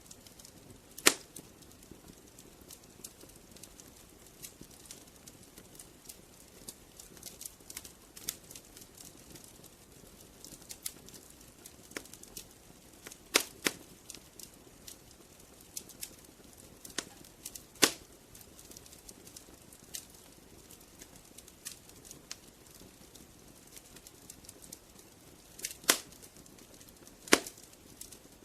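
Wood fire crackling, with a faint steady hiss under frequent small snaps and a handful of loud sharp pops.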